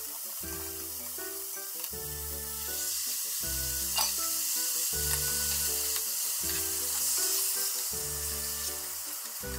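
Pork steaks sizzling in a frying pan, the sizzle growing louder and brighter about a third of the way in as the sauce goes into the hot pan. Background music with a repeating bass line plays under it.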